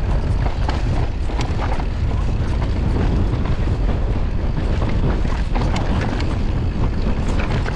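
Strong wind rumbling on the microphone of a mountain biker's action camera while the bike rolls down a rocky dirt singletrack, with scattered clicks and knocks from the tyres on stones and the bike rattling.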